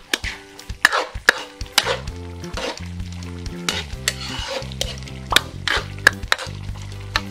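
A ladle stirring thick beef dinuguan (beef blood stew) in a metal wok, knocking and scraping against the pan many times over the sizzle of the simmering stew. Soft background music comes in about two seconds in.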